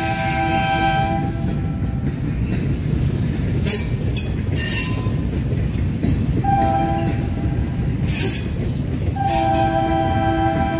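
Diesel locomotive air horn sounding a long blast that stops about a second in, a short blast about six and a half seconds in, and another long blast starting near the end, in the long-short-long pattern of a grade-crossing signal. Under it runs the steady rumble of the train.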